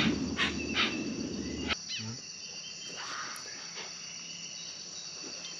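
A steady high-pitched chorus of rainforest insects. During the first couple of seconds a pulsing chirp repeats about twice a second over a low rumble. The sound then drops suddenly and only the quieter, steady insect drone remains.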